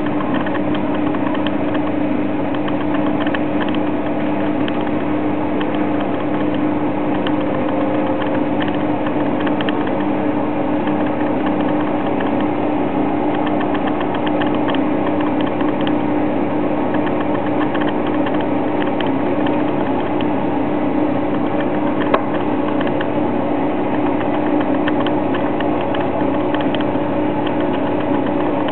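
Balay washing machine running with a steady motor hum and a continuous light rattle, with one sharper knock about three-quarters of the way through.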